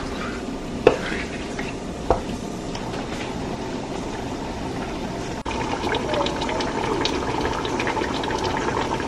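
Wooden spatula stirring chicken pieces in a granite-coated pot, knocking against the pot three times in the first two seconds. About halfway through, the chicken curry takes over, simmering with steady bubbling and small pops.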